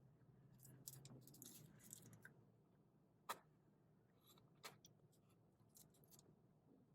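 Near silence with faint, soft chewing and a few small clicks of mouth sounds, two of them a little sharper around the middle.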